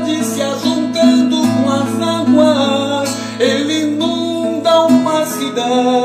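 Music: an instrumental passage of a Portuguese-language gospel song, with guitar strumming and picked notes between sung lines.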